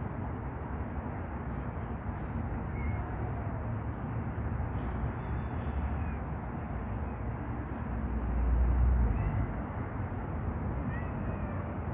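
Street cats meowing faintly a few times over a steady low outdoor rumble, which swells louder for about a second and a half near the end.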